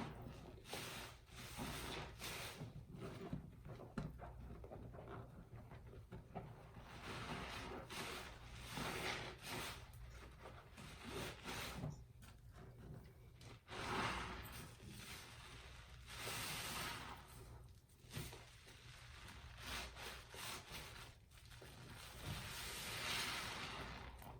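Wet sponges being squeezed by hand, a string of soft squishing, hissing swells at irregular intervals.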